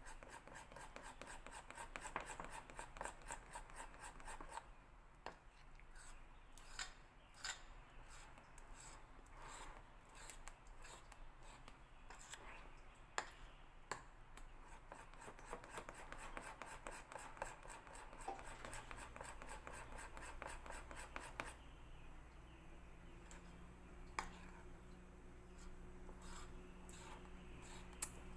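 Metal spoon beating pancake batter in a ceramic bowl: faint, fast, regular scraping and clinking strokes against the bowl, with a few short breaks, thinning out near the end.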